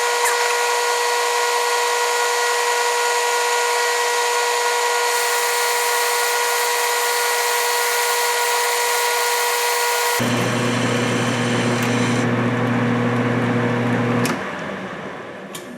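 Metal lathe running under power while turning mild steel: a steady machine whine with hiss on top. About ten seconds in the sound changes abruptly, and near the end the lathe is switched off and winds down.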